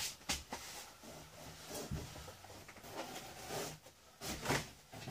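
A person crawling forward on a sailboat's deck under a canvas winter cover: scattered knocks and scuffs of knees and boots on the deck, the strongest about four and a half seconds in.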